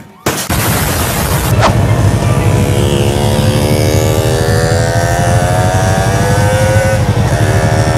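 Yamaha MT-03's parallel-twin engine pulling under way, its note rising slowly for several seconds, then dipping briefly near the end as a gear is shifted before pulling again, with wind rush. A short click sounds about two seconds in.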